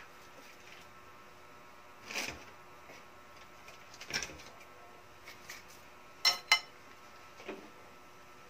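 Kitchen handling noises over a faint steady hum: a few short rustles and knocks, the loudest a quick pair of sharp clicks about two-thirds of the way through.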